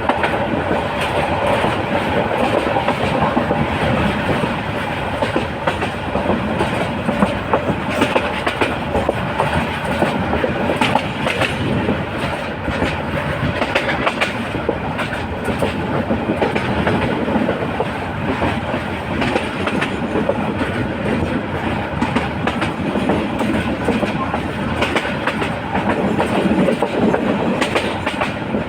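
Train running steadily along the track, its wheels clattering in a continuous clickety-clack over the rail joints.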